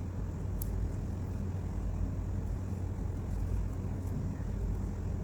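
Steady low background rumble, even throughout, with a faint click about half a second in.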